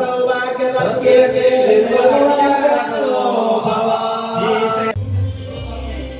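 Hindu mantra chanting: voices singing in long, held, gently bending notes. The chanting stops about five seconds in, leaving a low steady hum.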